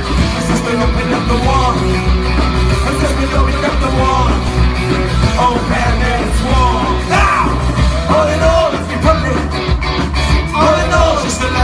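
Ska band playing live, heard from the crowd: electric guitars, bass and drums with a singer over the top.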